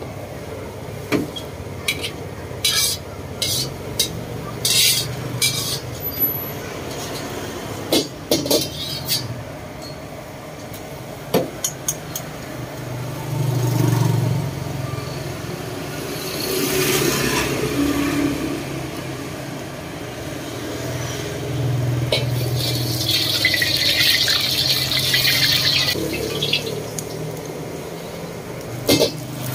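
A steel ladle knocks and scrapes against a carbon-steel wok in a run of sharp clanks during the first nine seconds or so, over a steady low rumble. Later a sizzling hiss rises for a few seconds, and one more clank comes near the end.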